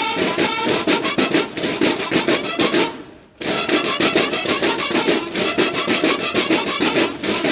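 Marching snare drums of a banda de guerra playing a rapid, dense drum pattern. The drumming stops briefly about three seconds in, then resumes.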